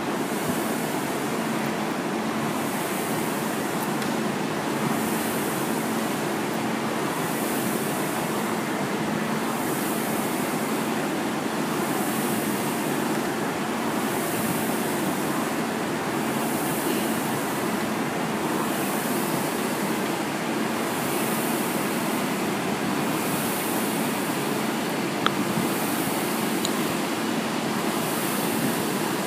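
Indoor rowing machine's fan flywheel whooshing with each stroke, a steady rhythm of about one stroke every two seconds over a constant rushing noise. A single sharp click comes about 25 seconds in.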